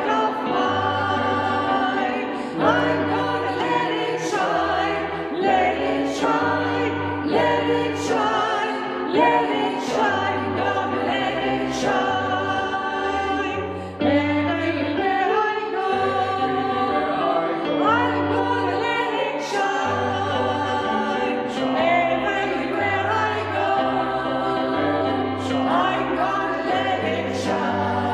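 A choir singing a Christmas song in several parts, over low notes that change about every second or two.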